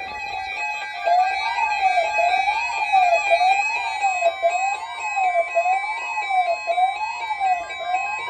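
Electronic siren rising and falling in pitch about once a second, starting about a second in, over background music with steady held keyboard tones.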